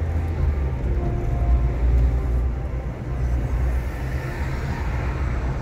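Car being driven: a steady low rumble of engine and road noise.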